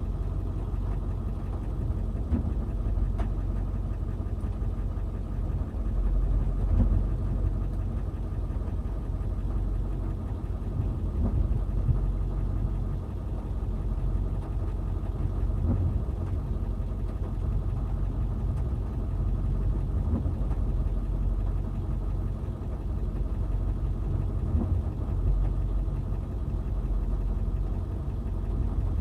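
Backhoe's diesel engine running steadily at a low rumble, with a few faint knocks here and there.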